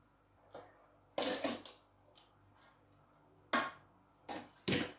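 A spoon scraping and clinking against a cooking vessel as cooked basmati rice is spooned in a layer over the chicken for biryani: a longer scrape about a second in, then a few sharp knocks near the end.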